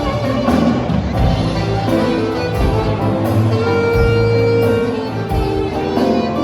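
Background music with held notes, bowed strings and a steady low beat.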